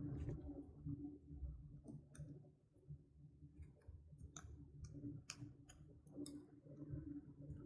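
Slime being squished and stretched by hand, giving faint, irregular sticky pops and clicks.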